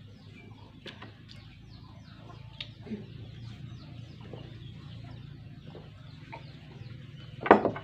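Chickens clucking, with many short high chirps throughout over a low steady hum; a brief louder sound comes near the end.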